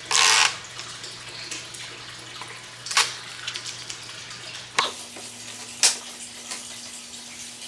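Backing being peeled off double-sided Gorilla mounting tape: a short hissing rip about half a second long at the start, then a few sharp clicks and taps from handling the plastic splitter piece.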